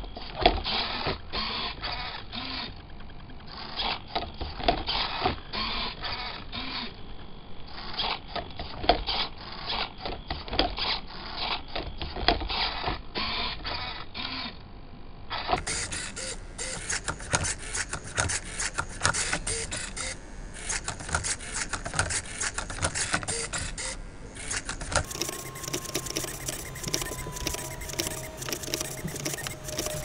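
Hobby servo motors of a Lego robot arm whirring in quick repeated bursts, with clicks, as the arm grips, flips and turns a Rubik's Cube. About halfway through, the sound jumps higher and busier as the footage is sped up, and it jumps again near the end.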